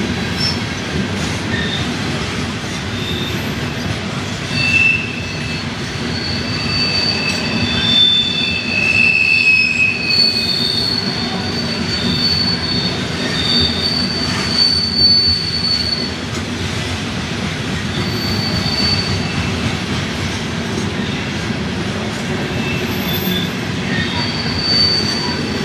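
CSX coal hopper cars rolling past with a steady low rumble of steel wheels on rail. High-pitched wheel squeal comes and goes over it, thickest from about five to sixteen seconds in.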